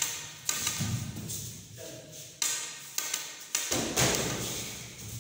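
Gloved punches landing during kickboxing sparring: several dull thuds at uneven intervals, the heaviest about four seconds in, echoing in a large bare hall.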